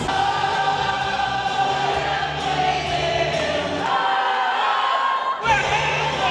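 Music with a sung vocal line; the bass drops out for about a second and a half past the middle, then comes back in with a hit.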